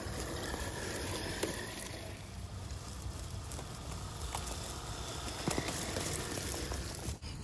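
Redcat Gen8 Scout II 1/10-scale RC crawler driving over dry leaf litter, its tyres crackling through the leaves.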